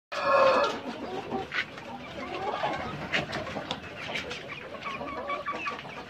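A flock of Rainbow Rooster hens clucking and calling at a feeding trough, with one loud squawk right at the start and a few sharp clicks among the calls.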